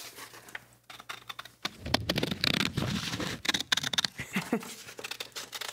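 Scissors snipping through a sheet of paper, a quick run of crisp cuts with the paper rustling, louder after about two seconds.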